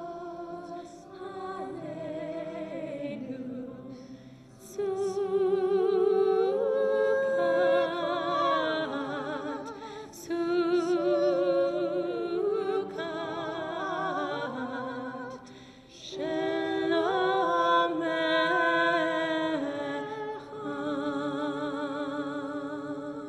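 A mixed choir of adults and children singing a Hebrew song together, in phrases that swell and pause briefly for breath.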